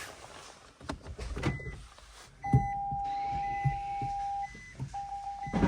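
Electronic warning chime inside a Nissan Leaf: a steady tone held about two seconds, then the same tone as rapid repeated beeps near the end, with several dull thumps among them.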